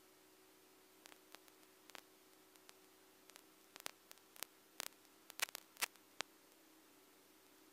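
Faint, heavily muffled steady drone of the small plane's engine, with scattered sharp crackling clicks that come thickest and loudest between about one and six seconds in.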